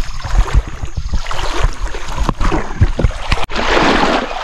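Water sloshing and splashing as someone wades through knee-deep floodwater, with irregular low thumps throughout and a louder rushing noise over the last second.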